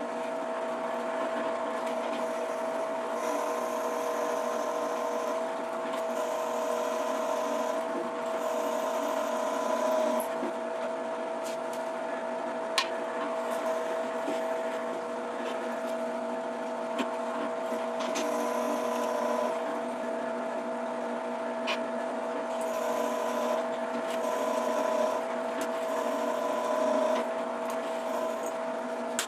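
Benchtop drill press running with a steady motor hum while the bit is fed into the metal part in several passes, heard as a high cutting hiss that comes and goes. There are a few sharp clicks, the loudest about halfway through.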